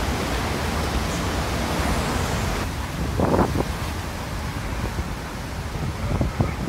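Hurricane-force wind and driving rain make a steady rushing noise, with wind buffeting the microphone. There is a brief louder swell about three seconds in.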